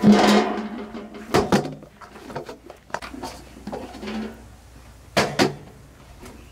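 Cooking utensils and pots knocking and clattering: a clatter at the start, then two pairs of sharp knocks, one about a second and a half in and one about five seconds in.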